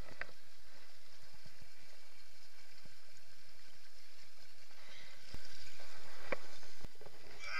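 Water splashing and churning as a hooked wels catfish thrashes at the surface, over a steady hiss, with a few sharp clicks. A louder patch of low noise lasts about a second and a half, starting a little past the middle.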